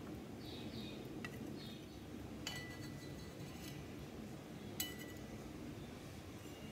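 Steel palette knife and metal spatula scraping and clinking against each other and a glass paint slab while gathering up paint, with a few sharp clinks, the two clearest about two and a half and five seconds in, each ringing briefly.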